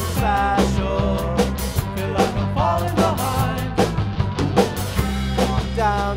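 Rock band playing live: electric guitars, keyboard and a drum kit, over a steady low bass line, with melodic lines bending in pitch.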